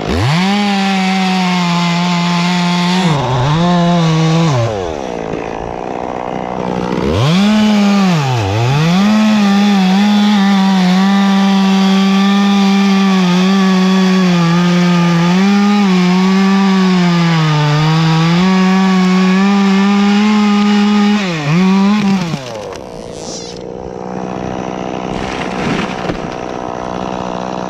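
Chainsaw at full throttle cutting through a large branch of a dead tree. It eases off twice briefly early on, comes back up to speed, holds a long steady cut, then drops back to idle about 22 seconds in.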